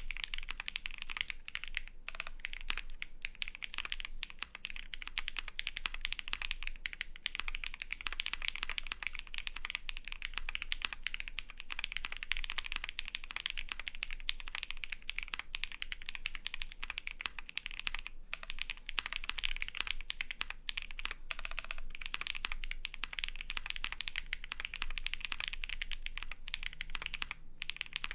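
Fast continuous typing on a Vega mechanical keyboard with lubed Holy Panda tactile switches on a polycarbonate plate and GMK keycaps: a dense run of keystroke clicks with a few brief pauses.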